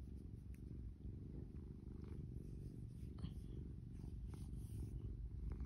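A domestic cat purring steadily, a low continuous rumble, while being stroked on the head and neck.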